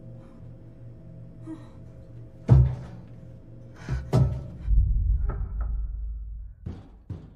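Horror-film soundtrack: a low sustained drone, then a loud thud about two and a half seconds in, two more heavy thuds around four seconds and a deep rumble lasting about two seconds. Two sharper knocks come near the end.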